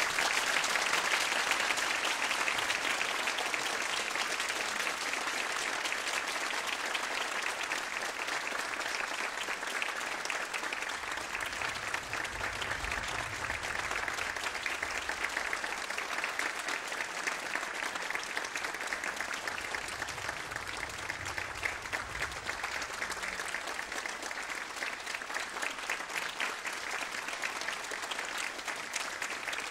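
Audience applauding steadily after an orchestral ballet piece ends, easing off slightly toward the end.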